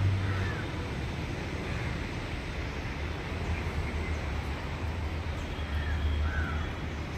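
Crows cawing now and then: a few short, arched calls near the start, about two seconds in, and twice near the end. A steady low rumble runs underneath.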